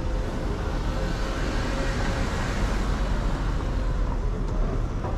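Steady city street traffic noise, with a large truck's engine running close by. A faint steady whine sounds through the first half.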